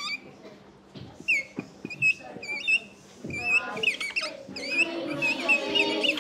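Dry-erase marker squeaking on a whiteboard as words are written: a series of short, wavering high squeaks, one per stroke, coming thicker and faster from about three seconds in.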